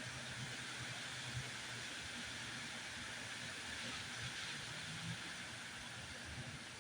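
Strong wind blowing, a steady rushing hiss with an uneven low rumble of gusts buffeting the microphone.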